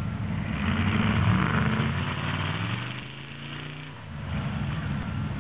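Mud truck's engine revving hard, then the revs falling away about three seconds in before picking back up.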